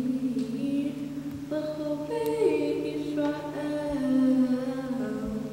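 A solo female voice chanting a Hebrew text unaccompanied in Jewish cantillation, holding long notes that step slowly from pitch to pitch.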